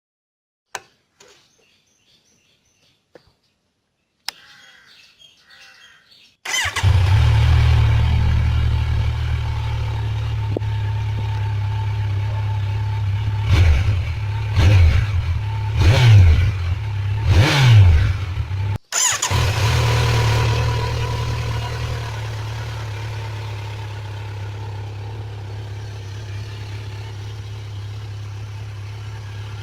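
Kawasaki Z900 inline-four motorcycle engine starting about six seconds in after a few faint clicks, idling, then revved in about four quick blips before settling back to a steady idle that slowly quietens.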